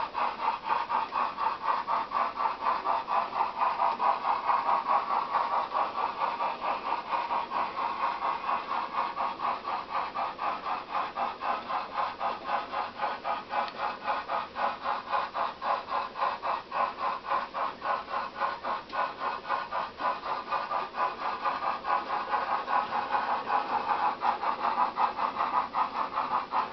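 Sound decoder of a J27 model steam locomotive playing steady, rapid, evenly spaced exhaust chuffs as the model runs. The chuffs dip a little in the middle and grow louder again near the end.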